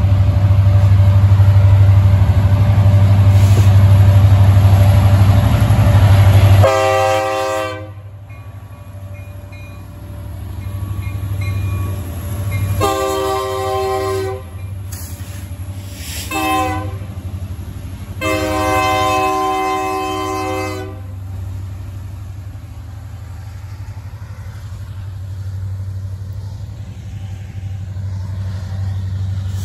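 BNSF diesel freight locomotives running past with a heavy low rumble that drops off about six and a half seconds in. The locomotive's multi-chime horn then sounds four blasts, long, long, short and a final drawn-out one: the grade-crossing signal.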